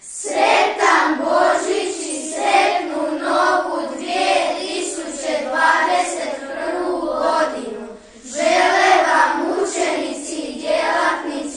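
A group of children singing a melody together, with a short break between phrases about eight seconds in.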